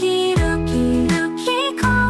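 Upbeat background music: sustained melodic notes over a bass that slides down in pitch about every three quarters of a second.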